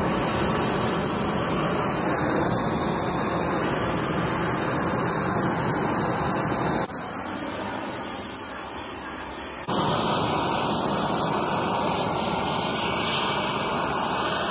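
Oxy-acetylene torch with a rosebud heating tip burning with a loud, steady rushing hiss as it heats a steel hinge. The level drops a little for about three seconds partway through, then returns.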